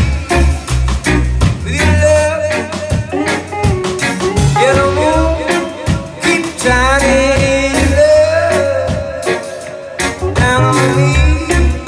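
Live reggae band playing an instrumental passage: a deep bass line, regular drum hits, and an electric guitar lead with bending notes.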